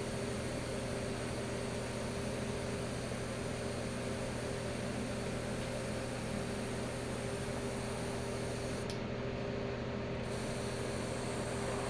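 Airbrush hissing steadily as it sprays chrome paint, over the steady hum of an air compressor. The hiss cuts out for about a second near the end while the hum runs on.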